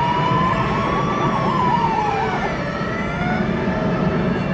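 Emergency-vehicle sirens from the approaching convoy sounding together over a low engine rumble. One gives a fast yelping warble that stops about halfway through; another gives a slower wail that rises and then falls.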